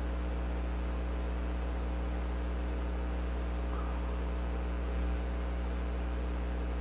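Steady electrical mains hum with a layer of background hiss, unchanging throughout.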